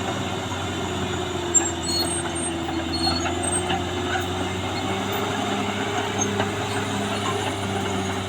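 Caterpillar D6R XL bulldozer running steadily under work, a droning engine with a held whining tone, and one sharp clank about a second and a half in.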